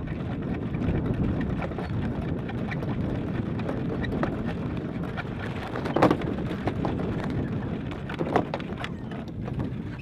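Steady rush of wind and water aboard a sailing ketch under way, with irregular knocks and clicks from the deck gear and rigging, the sharpest about six seconds in.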